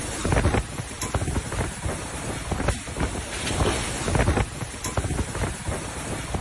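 Strong storm wind blowing hard across the microphone, rising and falling in gusts.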